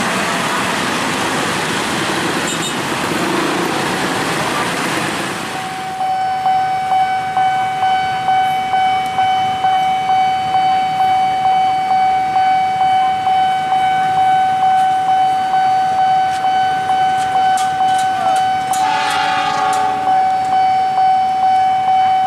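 Road traffic noise, then from about six seconds in a railway level-crossing warning bell ringing with a steady electronic tone, about three strokes every two seconds. Near the end a diesel locomotive's horn sounds briefly, for about a second, as the train approaches the crossing.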